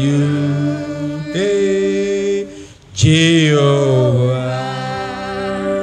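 A man singing a slow gospel chorus, drawing out long held notes; a new note starts after a brief break about three seconds in.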